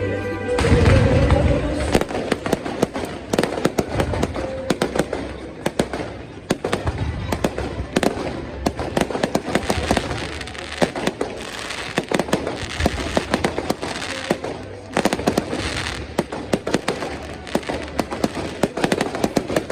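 Fireworks going off: a deep boom about a second in, then dense, rapid crackling and popping with scattered louder bangs.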